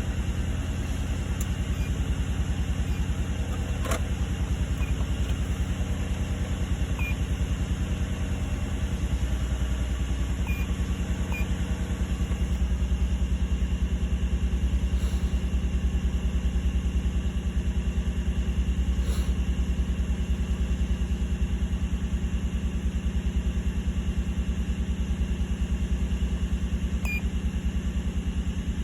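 2003 Nissan Murano's 3.5-litre V6 idling steadily with a slight stumble, a sign of the misfire the car has been logging on cylinder 2. Its codes are cleared but it still runs rough, which the owner suspects may be a bad coil pack.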